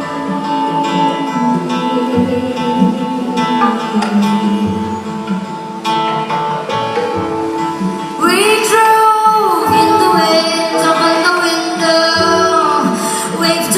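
Live ensemble music mixing Javanese gamelan with other instruments, with many sustained pitched notes. A louder, bending melody line comes in about eight seconds in.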